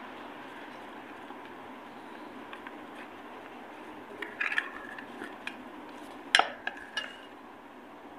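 Metal spoon stirring thick gram-flour (besan) dhokla batter in a stainless steel bowl, with a few clinks of the spoon against the bowl; the sharpest clink comes about six and a half seconds in.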